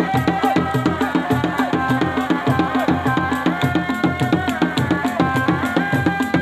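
Sundanese kendang drums struck by hand in a fast, steady rhythm, with a sustained, wavering melody line held over them.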